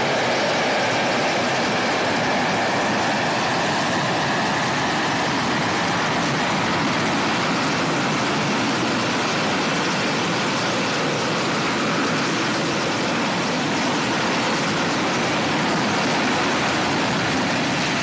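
AV-8B Harrier II's Pegasus vectored-thrust turbofan running at high power as the jet hovers and descends for a vertical landing: a steady, even jet roar. A faint high whine sits over it in the first few seconds.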